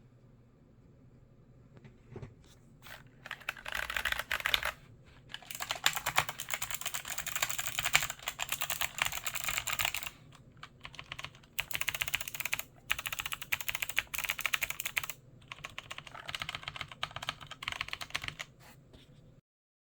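Mechanical keyboard being typed on rapidly in several fast bursts of key clicks, with short pauses between runs. It starts after a couple of seconds of quiet and stops just before the end.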